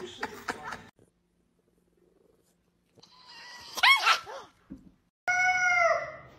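Several scratchy clicks in the first second, then quiet. About four seconds in comes a short, sharp animal cry that rises and falls. A little after five seconds a cat gives one long yowl, about a second long and dropping in pitch at the end; this is the loudest sound.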